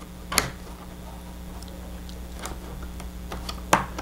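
A few small clicks of a metal pushrod clevis being worked onto a model airplane control horn, the sharpest about half a second in and another near the end.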